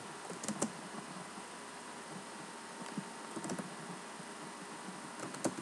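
Computer keyboard typing: a few short runs of key clicks with pauses between them, over a steady background hiss.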